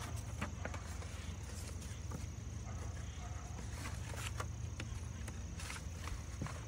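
Sheets of old drawing paper rustling and crackling in short bursts as they are lifted and shuffled in a plastic tote, over a steady low rumble and a constant thin high tone.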